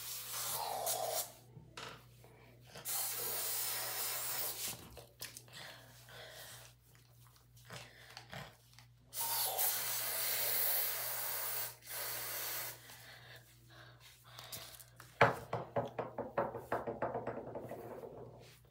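Aerosol spray applied under the arms, hissing in three bursts of one to two and a half seconds each. Near the end comes a run of quick rubbing and rustling.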